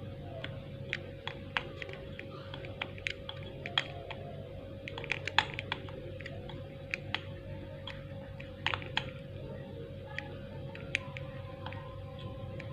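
Soldering iron tip working solder on the pads of an LED bulb's circuit board, giving irregular small clicks and crackles over a steady faint hum. The solder is bridging a dead LED's pads so the rest of the LED string lights again.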